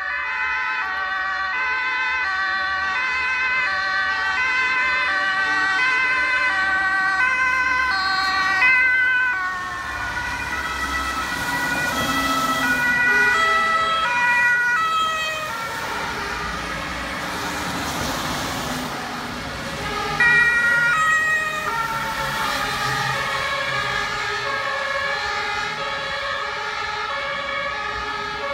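Two-tone sirens of several German fire service vehicles, the high and low notes alternating steadily, with more than one siren sounding at once and out of step. Engine and road noise of the passing vehicles swells from about ten to twenty seconds in, under the sirens.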